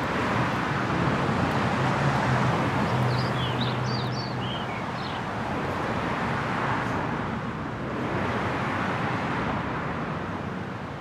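Street traffic: cars passing along the road, their rushing noise swelling and fading, with a low engine hum in the first few seconds. A bird chirps several times about three to five seconds in.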